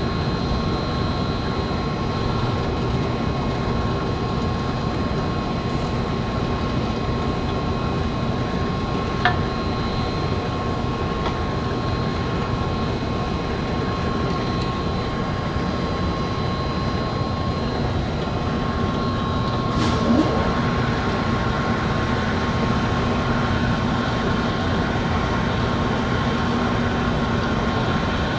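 Benchtop drill press running steadily, a constant motor hum with a thin whine over it, as the bit is fed down into wood and a scrap circuit board. A sharp click sounds about nine seconds in and another just before twenty seconds, after which the low hum shifts and grows a little stronger.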